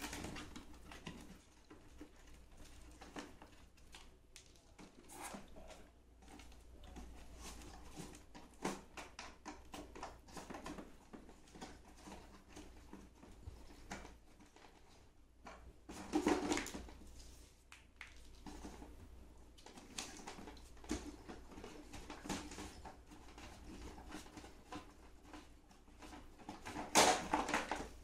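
Cardboard packaging insert being handled while small pins are pushed out of its holes: scattered light rustles, scrapes and clicks, with two louder bursts of cardboard handling about sixteen seconds in and near the end.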